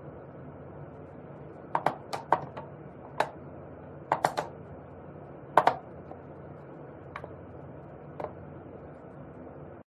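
Wooden whack-a-mole cat toy clicking and clattering as a cat paws at its levers and pop-up mice: a scatter of sharp taps, some single and some in quick little clusters.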